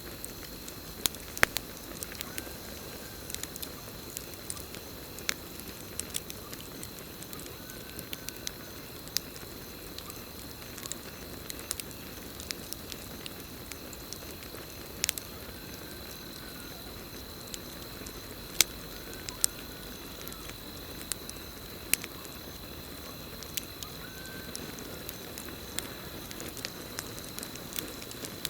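Campfire burning with a steady crackle and frequent sharp pops, over a constant high cricket chorus. A short arching call sounds five times, a few seconds apart.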